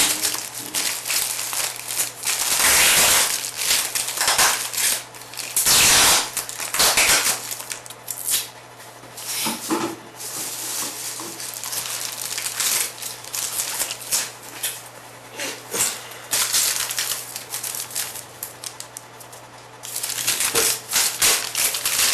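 Packaging being handled and opened, with irregular crinkling, rustling and clicking and louder bursts now and then, over a steady low electrical hum.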